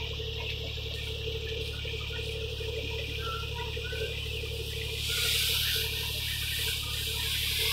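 Kubota DC-35 rice combine harvester with a three-cylinder diesel engine, running steadily while cutting rice: a constant low engine hum with a rushing hiss on top that swells briefly about five seconds in.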